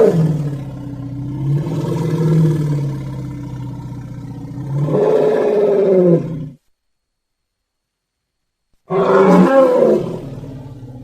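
Elephant calf calling: a long, low pitched roar that swells loudly twice and then cuts off suddenly, followed after about two seconds of silence by a second call that starts loud and fades.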